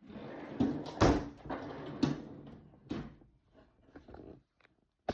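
Things being moved around inside a refrigerator: rustling and scraping with several sharp knocks, the loudest about a second in.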